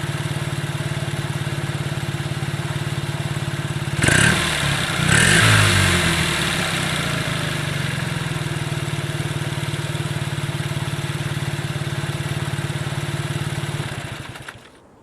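1986 Subaru Sambar truck's small two-cylinder kei engine, heard through its muffler, idling steadily. It is blipped twice, about four and five seconds in, then settles back to idle and is shut off near the end.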